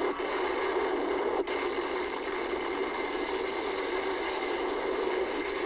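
Old monster-movie soundtrack heard through a TV speaker: a steady, noisy din of sound effects with no clear tone, dipping briefly twice in the first second and a half.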